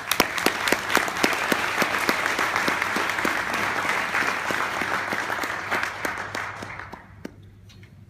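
Audience applauding, with one pair of hands clapping close by in a steady beat of about four claps a second; the applause dies away about seven seconds in.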